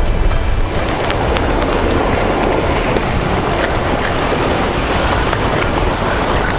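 Wind buffeting the microphone over the steady rush of surf breaking against a rock jetty, with a heavy low rumble.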